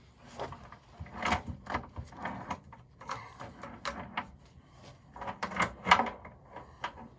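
Irregular metallic clinks and clunks of a heavy solid steel drive chain and sprocket being handled and worked into place on a skid steer, with one louder knock a little before six seconds in.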